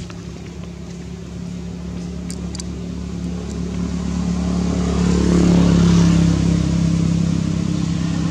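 A motor engine running with a steady low hum, growing louder as it approaches and loudest about six seconds in.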